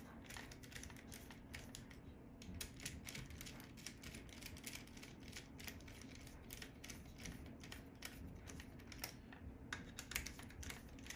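Faint, irregular small clicks and ticks of a hex driver turning screws as the mounting screws of a billet brake piece are snugged down on an RC Baja, with a couple of short pauses.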